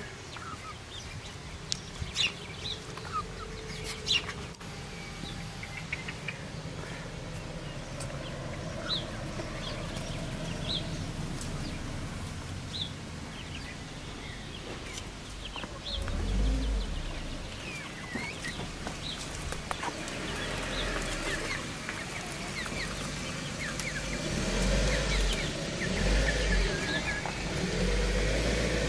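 Young silkie chickens giving short, high calls and soft clucks while they forage. Sharp clicks come near the start, and a low rumble comes and goes from about halfway on.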